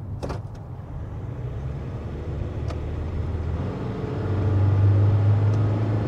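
Nissan Caravan's 2.5-litre turbo-diesel engine, heard inside the cabin, pulling at about 3,000 rpm as the van accelerates to merge onto the expressway, with the dry diesel sound of acceleration. The engine hum grows louder about four seconds in.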